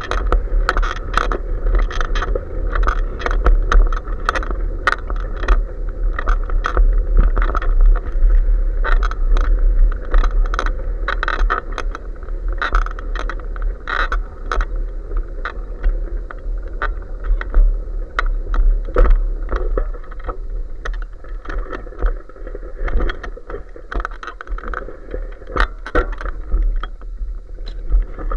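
Bicycle ride heard through a bike-mounted action camera: a steady low rumble of wind and road vibration, with frequent irregular rattling clicks as the bike jolts over rough pavement.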